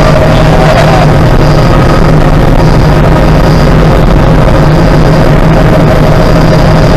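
Helicopter in flight, heard from inside the cabin: loud, steady engine and rotor noise with a low hum and a high whine.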